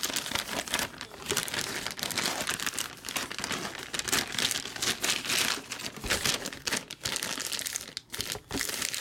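Plastic wrapping on trading-card boxes and packs crinkling as it is handled, a dense crackle that runs on and off without a break in rhythm.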